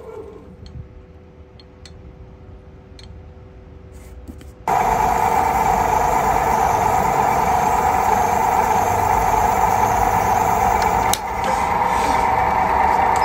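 Lathe spinning a purpleheart blank with a steady motor hum; about four and a half seconds in, a much louder steady cutting noise starts as a twist drill bit bores a centre hole into the end of the spinning wood.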